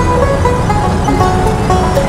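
Bluegrass music between sung lines: an instrumental passage of quickly picked string-instrument notes over a steady low rumble.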